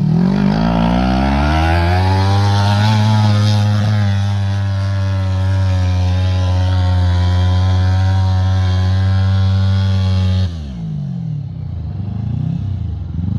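Small gasoline engine of a homemade go-kart speeding up, rising in pitch over about two seconds, then holding a steady high speed under throttle. About ten and a half seconds in the throttle is let off and it drops suddenly to lower, uneven running.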